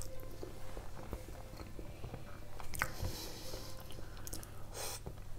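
Close-miked chewing: a mouthful of mashed potatoes and meat cutlet being chewed, with small wet mouth clicks and smacks and a few short hissy bursts.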